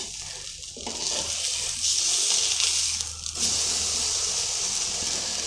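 Milk-soaked bread slice frying in butter in a pan, sizzling steadily, with two brief dips about a second in and past the middle.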